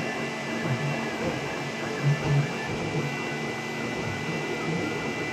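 3D printer running a print, a steady humming with a thin high whine from its stepper motors and short shifting low tones as the motors change moves.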